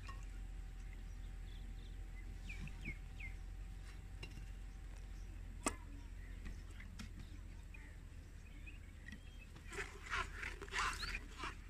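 Quiet background with a few short bird chirps, then near the end a run of quick scraping strokes: a spoon working blended falsa pulp against a steel mesh strainer to push the juice through.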